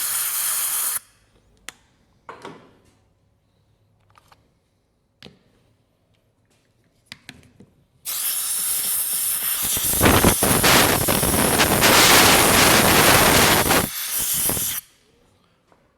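Pressurised spray hissing: a short burst at the start, a few small clicks and knocks, then a long, loud hiss of about seven seconds that cuts off near the end.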